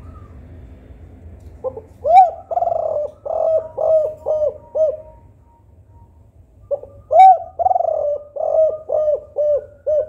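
Spotted dove (tekukur) cooing two song phrases. Each phrase opens with a short note, then a loud rising-and-falling coo and a drawn-out coo, and ends in four short repeated 'kuk' notes: the 'kuk 4' song type.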